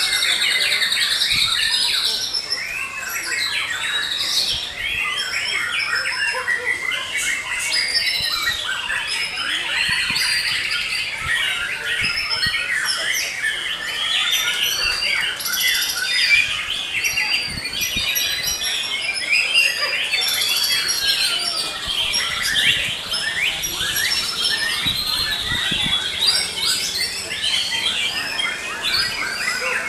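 Several caged white-rumped shamas singing at once in a contest: a dense, unbroken tangle of rapid whistles, chirps and trills. A steady high note is held for about the first two seconds.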